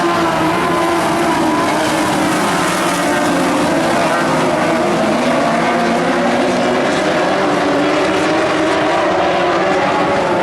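A field of Lightning Sprint race cars running together on a speedway track, several engine notes overlapping and wavering up and down at a steady loudness.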